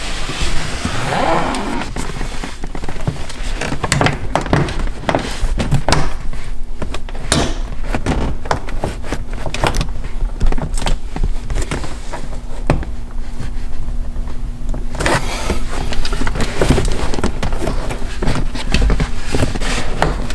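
Car interior trim being worked into place by hand: a carpet-backed plastic rear side panel and the seat bolster knocked and shifted, giving irregular knocks, thunks and rustling. A low steady hum underneath stops about three quarters of the way in.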